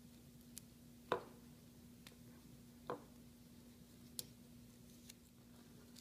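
Quiet handling of a Victorinox Walker pocketknife and tinder over a wooden cutting board: a few short, sharp clicks and taps, the loudest about a second in and another near three seconds, over a low steady hum.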